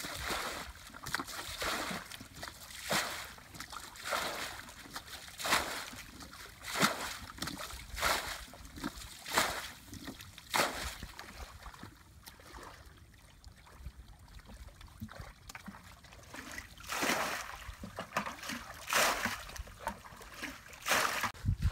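Muddy water splashing as it is scooped and tipped out of a shallow rice-field ditch with a plastic basin, about one splash a second, with a pause of a few seconds partway through.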